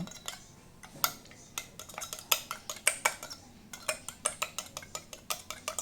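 Small metal parts and tools clinking and tapping while a sewing machine motor is worked on: an irregular run of sharp metallic clicks, several a second, thickening about a second in.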